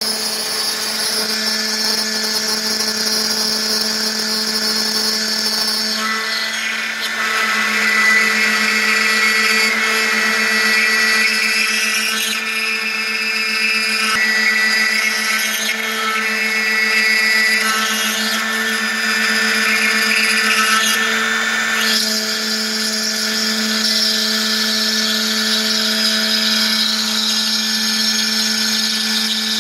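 CNC router spindle milling marble with a water-cooled bit: a steady motor hum under a continuous grinding cutting noise. The cutting noise grows louder and lower about six seconds in and returns to its earlier sound around twenty-two seconds.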